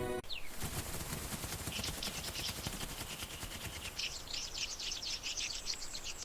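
Birds chirping and calling rapidly over a steady hiss, the calls growing denser and busier in the second half.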